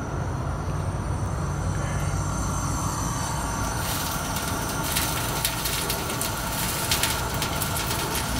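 Rows of gas burner flames inside a cooker, giving a steady low rushing rumble. About four seconds in, a brighter hiss with many sharp crackles joins it.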